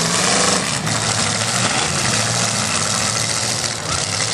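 Several demolition derby cars' engines running and revving together in a loud, dense din.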